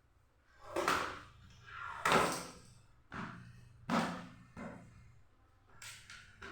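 Plastic parts being handled and knocked: a series of about six uneven knocks and scrapes, each fading quickly.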